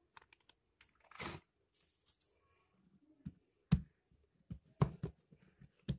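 Hands patting and pressing a ball of yeast doughnut dough flat on a floured plastic tablecloth. A short soft brushing sound comes about a second in, then a series of soft pats, one or two a second, from about three seconds on.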